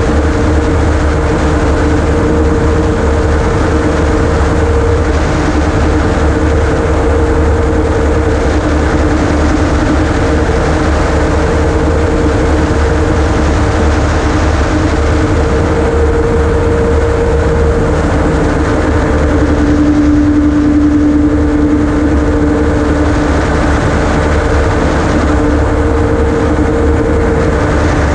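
Ultralight amphibious gyroplane in steady cruise flight, picked up by a camera mounted on the aircraft: the engine and rotor run with a steady low rumble and a droning hum that swells and fades slightly, over a constant rush of noise.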